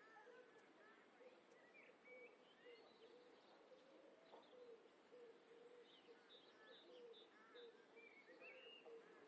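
Faint garden birdsong: scattered short chirps and twitters from small birds, over a low, wavering hum.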